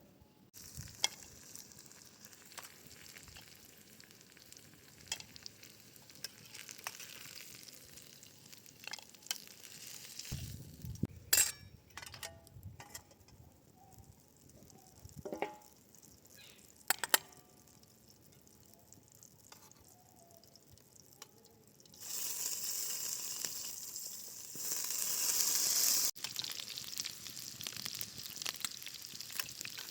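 Cookware clinking and knocking now and then, then about 22 seconds in food starts sizzling in hot oil in a pan, a steady frying hiss.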